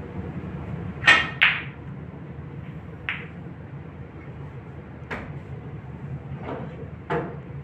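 Snooker balls clicking on the table as a shot is played: a sharp, loud double click about a second in, then several fainter single clicks spaced a second or two apart.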